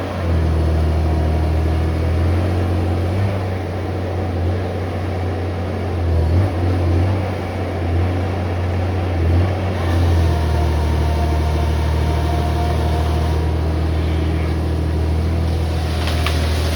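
Valmet 415 forestry machine's diesel engine running steadily, with slight swells in loudness now and then.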